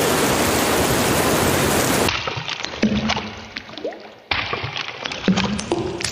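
Rain sound effect: a dense hiss of heavy rain for about two seconds, then an abrupt switch to individual water drops dripping and plopping, with a second sudden change about four seconds in.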